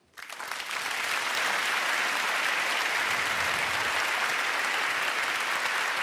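Audience applause, starting right after a moment of silence and swelling within about a second to steady clapping.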